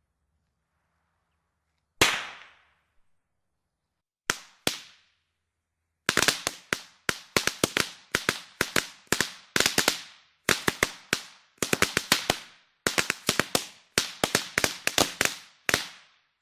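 Fireworks going off: a single sharp bang, then two close together, then a fast, irregular volley of bangs lasting about ten seconds, each one trailing off briefly.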